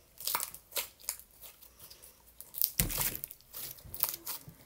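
A bubble of slime being popped and squeezed in the hands close to the microphone: a run of small crackling pops, with the loudest burst about three seconds in.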